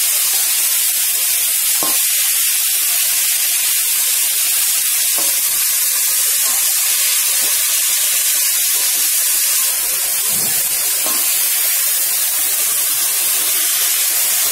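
Dhekia (fiddlehead fern) greens sizzling as they stir-fry in oil in a karahi: a steady hiss, with a few faint knocks of the spatula against the pan as they are turned.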